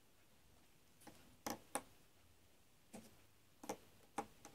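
Felt-tip markers handled and set down on a wooden desk: a few short, light clicks and taps, in two small groups about a second and a half and about four seconds in.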